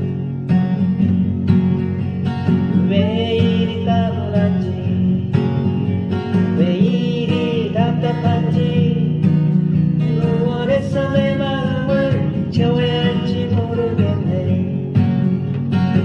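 A song: a singer's voice carrying a wavering melody over a guitar accompaniment with a steady strummed beat.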